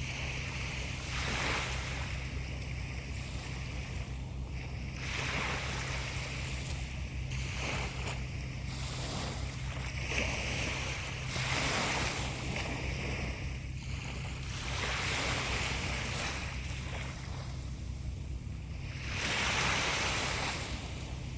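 Sea waves breaking, a steady wash of surf that swells into a louder surge every few seconds, the biggest near the end, over a steady low hum.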